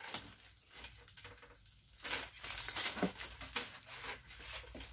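Plastic packaging crinkling and rustling as hands rummage through a packed box, with small handling knocks; sparse at first, busier and louder from about two seconds in.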